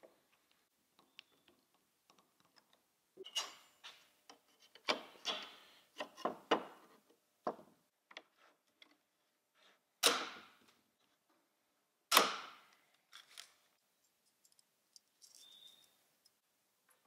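Hand pop-rivet tool riveting stainless steel trim: a run of small clicks and knocks, then two loud, sharp snaps about two seconds apart as rivet mandrels break off.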